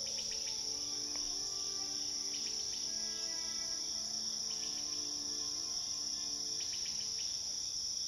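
Steady, unbroken chorus of crickets trilling, with soft sustained low notes shifting in pitch underneath.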